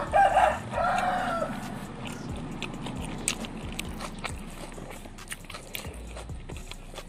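A rooster crows once in the first second and a half, a loud call in two parts, the second held and falling away at the end. After it there are faint clicks and chewing sounds.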